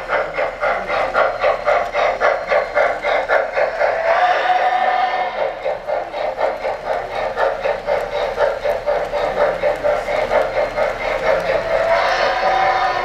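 MTH RailKing O-scale Norfolk & Western J-class 4-8-4 model steam locomotive passing close, its onboard sound system playing rapid, even steam chuffs over the running noise of the train on three-rail track. A steady whistle-like tone sounds near the end.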